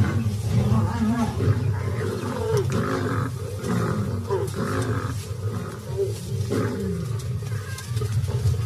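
Lioness snarling and growling in a rapid string of rough calls while defending a kill against a mobbing attack.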